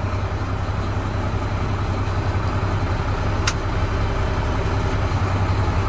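A 2007 Mack Granite dump truck's Mack diesel engine idling steadily, heard from inside the cab, with a single faint click about three and a half seconds in.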